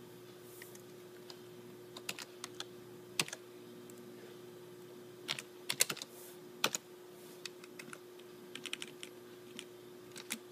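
Computer keyboard keys being typed in short, irregular runs of clicks, over a faint steady hum.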